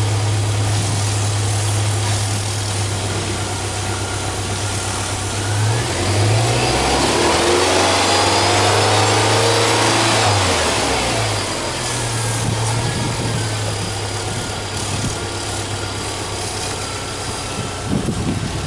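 Subaru Legacy Touring Wagon tuned by STi's EJ20 turbocharged flat-four idling steadily. About six seconds in it is revved up and held for about four seconds, then settles back to idle.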